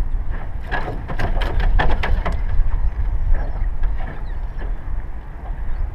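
Steady low rumble of wind on the microphone over choppy water on a small fishing boat. A quick run of clicks and knocks comes about a second in.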